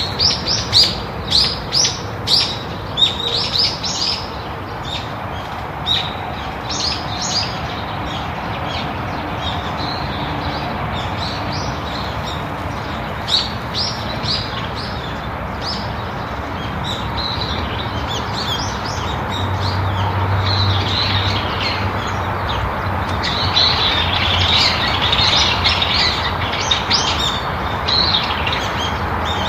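Songbirds chirping, many short overlapping calls, over a steady outdoor background hiss; the chirping grows denser near the end.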